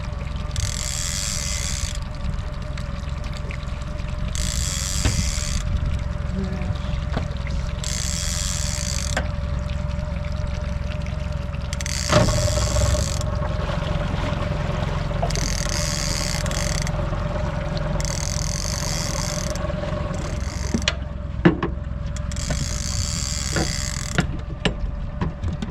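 Fishing reel cranked in repeated spells of a second or two, every two to three seconds, as a snagged spoonbill is pumped and reeled in. Under it the boat's motor runs steadily with a low rumble, and there are a few knocks and clicks, the loudest about twelve seconds in.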